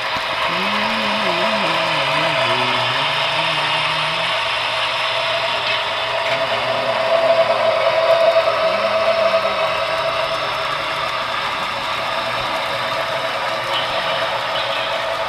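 Steady mechanical whir and clatter of a model PRR S2 6-8-6 steam-turbine locomotive's motor, gears and wheels as it pulls a 31-car freight train.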